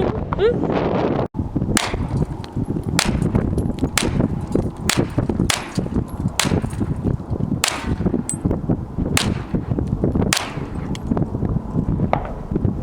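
A string of about nine gunshots, sharp cracks a little under a second to about a second and a half apart, over steady wind noise on the microphone.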